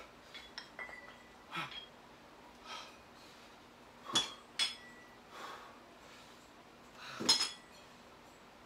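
Metal plates of plate-loaded dumbbells clinking and knocking as the dumbbells are handled and set down on a rubber floor mat, with heavy breathing between the lifts. There are several clinks, two about four seconds in and the loudest near the end.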